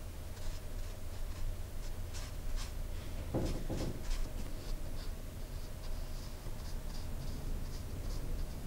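Small round paintbrush loaded with poster colour paint stroking and dabbing on hot-pressed watercolour paper: a run of short, soft scratchy strokes, with a fuller, duller rub about three and a half seconds in.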